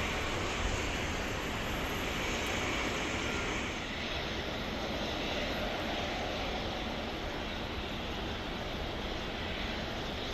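Hawker 800XP business jet's turbofan engines running at taxi power, a steady broad rushing noise that eases slightly about four seconds in.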